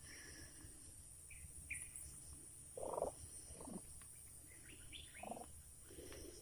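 Faint outdoor ambience: two short bird chirps about a second and a half in, then a few soft scattered sounds over a steady high hiss.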